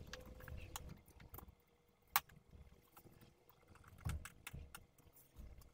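Faint clicks, taps and a few dull knocks of hands handling parts in a car's engine bay, with one sharper metallic click about two seconds in and low thuds about four seconds in.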